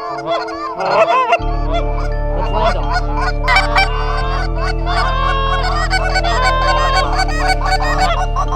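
A flock of Canada geese honking, many overlapping calls, over background music whose low bass comes in about a second and a half in.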